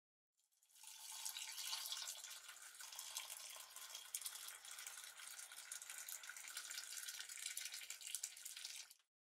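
Water pouring in a steady stream into a mug, an even splashing hiss that fades in at the start and cuts off suddenly about nine seconds in.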